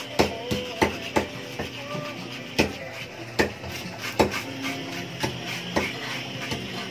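A knife scaling fish by hand: irregular sharp knocks and scraping strokes against the fish and the stall surface, about one or two a second.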